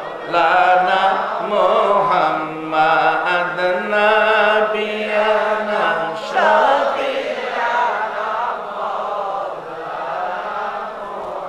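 Men's voices chanting darood together, sung as a slow devotional chant with long held notes.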